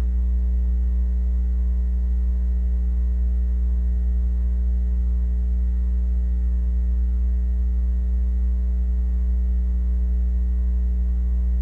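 Steady electrical mains hum on the soundtrack: a low buzz with a ladder of evenly spaced higher overtones, unchanging in pitch and level.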